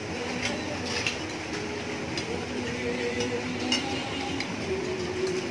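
Metal spoons and forks clinking and scraping on ceramic plates, with a few sharp clinks scattered through, over faint background music.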